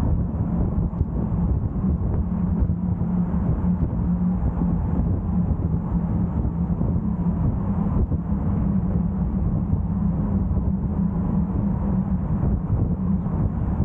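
Car driving at a steady pace on the open road: a constant low drone of engine and tyre rumble that holds level throughout.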